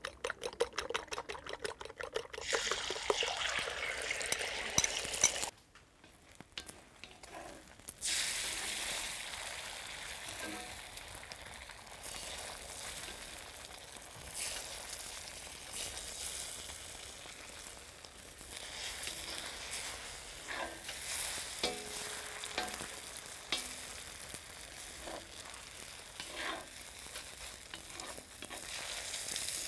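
Beaten eggs sizzling as they fry in hot oil in a cast-iron wok, with a wooden spatula scraping and turning the omelet. The sizzle drops out briefly a few seconds in, then carries on steadily.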